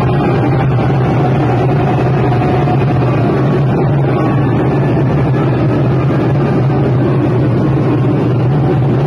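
A large group playing djembes together in a fast drum roll, a dense steady rumble with no separate beats, with people shouting over it.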